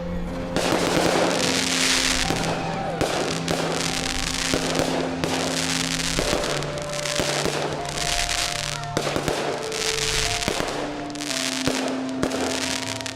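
Aerial fireworks going off in a display: sharp bangs and bright crackling showers every few seconds. Music with long held notes plays underneath.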